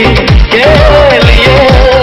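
Instrumental break of a Bollywood dance-pop song: a fast electronic kick-drum beat under a wavering lead melody, with no singing.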